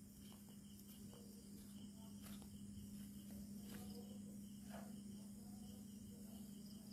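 Faint crickets chirping in an even, rhythmic pulse, over a steady low hum.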